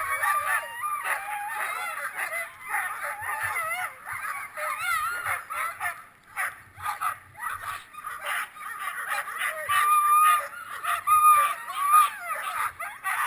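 A team of harnessed sled dogs barking, yelping and howling all at once in a continuous overlapping din, the excited noise of dogs eager to run.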